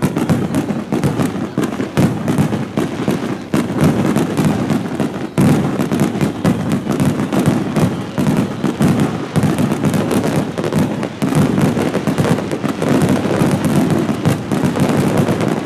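Aerial fireworks shells bursting in a dense, unbroken barrage of the grand finale, the bangs following one another too fast to separate.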